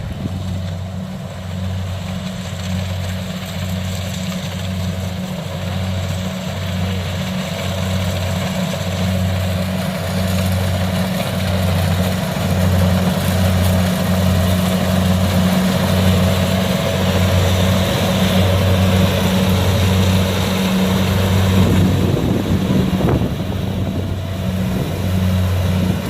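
Kubota DC70 combine harvester running close by: a steady diesel engine with a regular low throb under the rush of its threshing machinery, growing somewhat louder toward the end.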